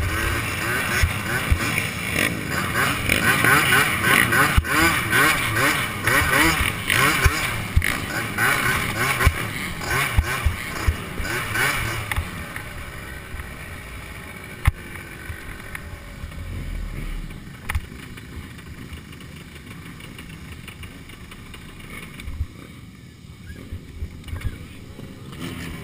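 Youth 90 cc ATV engine heard from the rider's helmet, its pitch rising and falling as it is throttled up and down. About halfway through it drops to a much quieter low running as the quad slows and stops.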